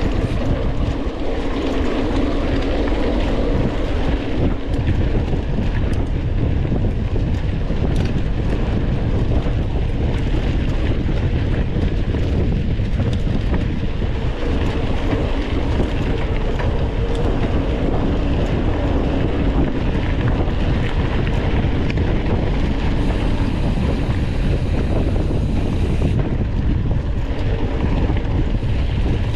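Wind buffeting the microphone of a bike-mounted action camera, with steady tyre rumble from a mountain bike riding over a dirt trail.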